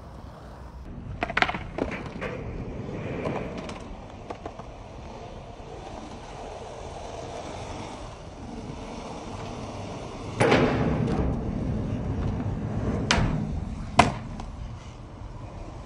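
Skateboard wheels rolling on concrete, broken by sharp board clacks and landings: a pair about a second and a half in, then a loud hit at about ten and a half seconds followed by two seconds of louder rolling or scraping, and two more sharp cracks near the end.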